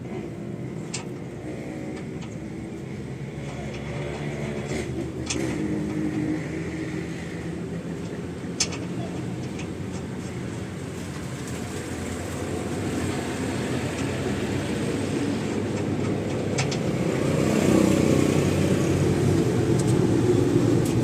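A motor vehicle's engine running steadily and slowly growing louder towards the end, with a few sharp metallic clicks over it.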